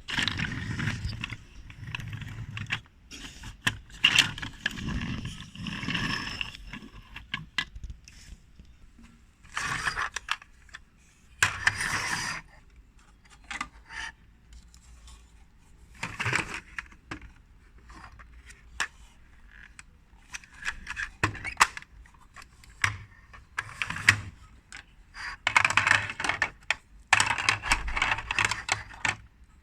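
Toy construction-vehicle pieces being handled and fitted together by hand: irregular clicks and knocks with short bursts of rattling and scraping, and quieter pauses between.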